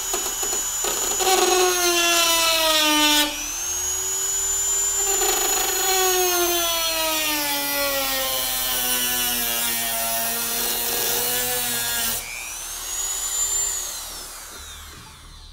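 Handheld rotary tool with an abrasive cut-off wheel cutting a copper heat pipe. Its high whine sinks in pitch as the wheel bites into the pipe, jumps back up about three seconds in, then sinks slowly again. Near the end it drops and fades away with a falling pitch.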